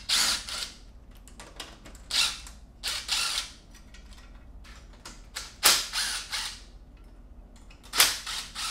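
Cordless impact driver with a socket hammering out 10 mm bolts in five short bursts: the bolts holding the AC condenser to the radiator support coming loose.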